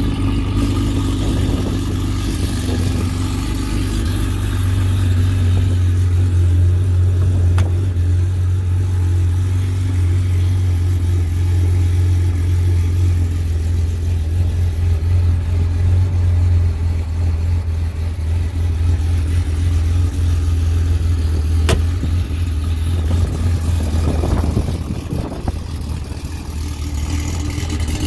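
Porsche 911's air-cooled flat-six idling steadily, a constant low drone from the exhaust, with a couple of brief clicks.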